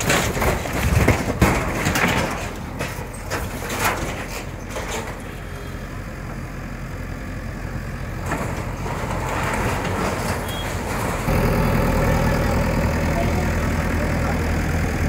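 JCB backhoe loader's diesel engine running as its bucket crashes through corrugated metal roofing sheets, with a string of metallic bangs and clatter in the first few seconds. About two-thirds of the way through the engine grows louder and steady.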